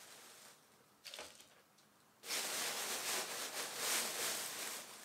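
Gloved hands digging potting mix out of a plastic bag, making the bag and the soil rustle and crunch. It is faint at first, with one small rustle about a second in, and the steady rustling starts a little over two seconds in.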